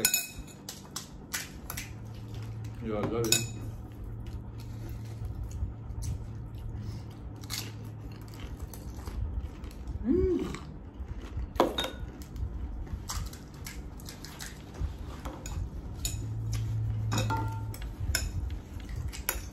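Irregular clinks and taps of spoons and crockery as golgappas are filled and eaten in a hurry, with a couple of brief vocal sounds from the eaters.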